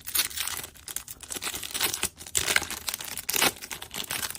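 Pokémon card booster pack wrapper being crinkled and torn open by hand, a dense run of crackling with sharp snaps.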